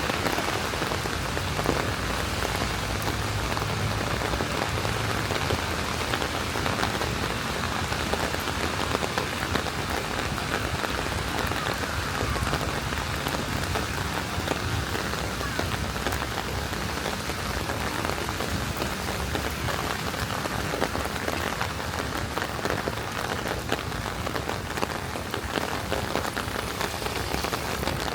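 Steady rain falling on wet pavement, a constant patter made of many small drop ticks.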